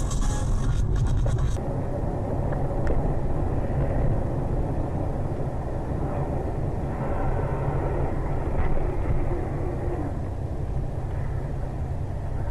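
A car driving, with a steady low road and engine rumble. About a second and a half in, a harsher hissing sound cuts off abruptly and the rumble carries on.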